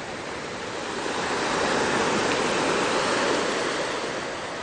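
Sea surf: a wave breaking and rushing up the beach, building about a second in and easing off near the end.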